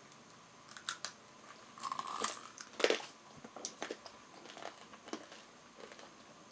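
Hard caramelized sugar shell on candied strawberries crunching as they are bitten and chewed: a few sharp crunches, the loudest about three seconds in, then lighter crackles.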